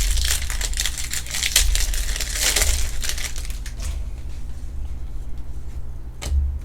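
Trading cards and their plastic sleeves being handled and flipped through: a dense run of quick clicks and rustling for about four seconds, then quieter, with one sharp click near the end.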